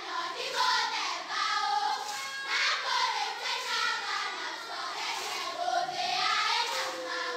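A group of high-pitched voices, overlapping, with drawn-out notes that rise and fall.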